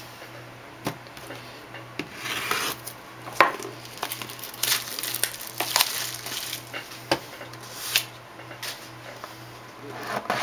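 Rubbing, scraping and scattered clicks of a small cardboard box of 2007 Upper Deck Premier baseball cards being handled and opened.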